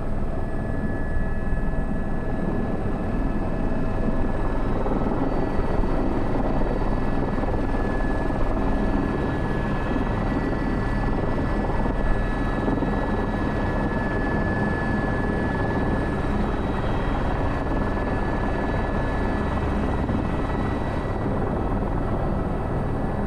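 Airbus H125 helicopter in flight, its single turboshaft engine and rotors running steadily, heard from the cabin, with a thin steady high whine over the dense rotor and engine noise.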